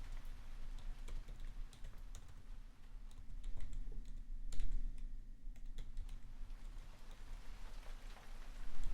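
Typing on a computer keyboard: irregular clicking keystrokes, with a few louder strokes around the middle and near the end, over a steady rain background.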